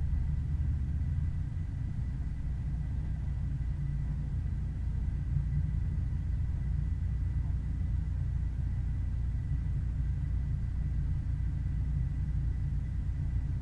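Steady low rumble of a car's engine and tyres at a constant cruising speed, heard from inside the car, with a faint constant high-pitched tone.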